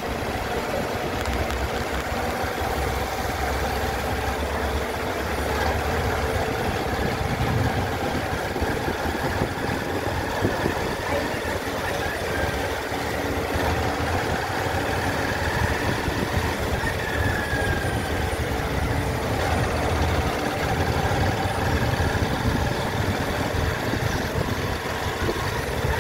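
Engine of the vehicle being driven, running steadily with road and wind noise.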